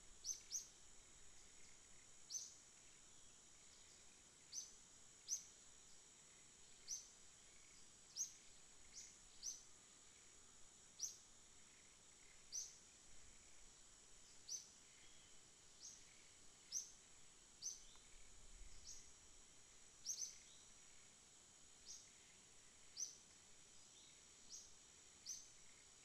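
Faint, short high chirps of a small bird, repeated irregularly about once a second, over a steady faint high-pitched whine.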